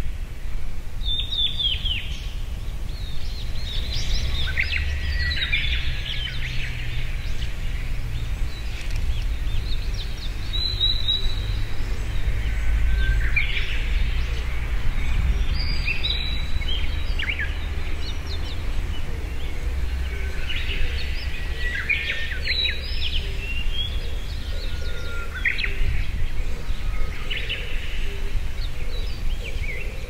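Blue-and-white flycatcher singing: short, clear whistled phrases repeated every few seconds, over a steady low rumble.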